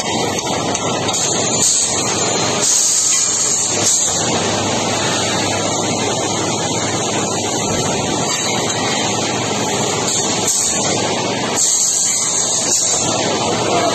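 Steady loud machinery noise of a factory floor around a tube packing and stacking line, with a few brief hisses, two near the start and two near the end.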